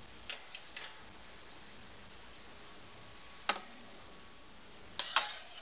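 A few short, sharp clicks and taps over a faint steady hiss: three small ones at the start, a louder one about three and a half seconds in, and two close together near the end.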